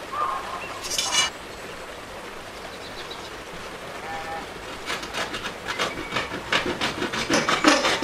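A small hand saw cutting through an aluminium strip, quick rhythmic rasping strokes, about three or four a second, starting about five seconds in and growing louder. Before that, a brief scratch of a marker on the metal about a second in.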